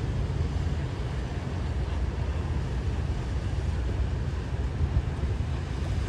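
Low, steady rumble of a sportfishing yacht's engines as it motors past through the channel, mixed with wind buffeting the microphone.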